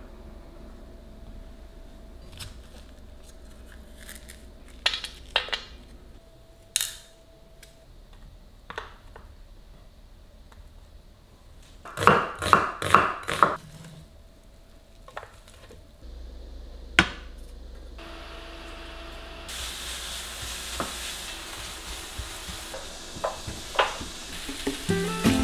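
Kitchen handling sounds: scattered light knocks of utensils and produce, then a knife chopping an onion on a wooden cutting board in about five quick, loud strikes. Near the end a steady sizzle starts as vegetables begin frying in a pan.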